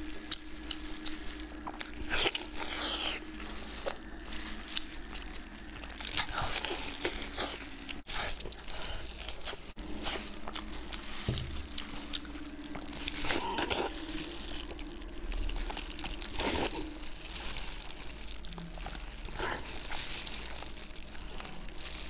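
Close-up eating sounds: biting, tearing and chewing braised pork on the bone, with irregular wet, sticky smacks and crunches. Plastic gloves crinkle as the hands pull the meat apart.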